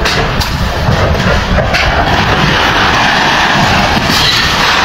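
Heavy demolition machinery working on the church buildings: a dense, loud, continuous rumble with a few sharp knocks of breaking masonry scattered through it.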